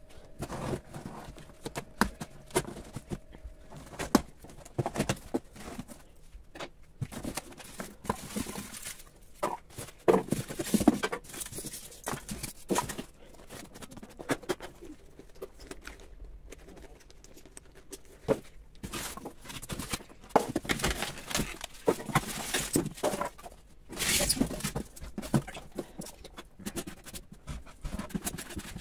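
A cardboard box being unpacked by hand: scissors cutting the packing tape, then the flaps opened and polystyrene foam packing pulled out and the contents lifted, making irregular rustles, scrapes and knocks.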